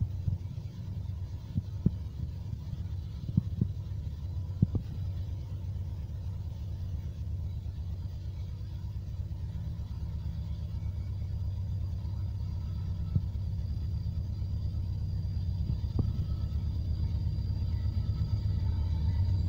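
Diesel locomotives of an approaching Union Pacific freight train, a steady low rumble growing gradually louder as the train nears. A few sharp clicks in the first five seconds.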